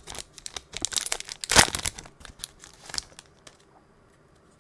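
Foil wrapper of an Upper Deck hockey card pack being torn open and crinkled by hand, a run of sharp crackles with the loudest about one and a half seconds in. The crinkling stops a little over three seconds in.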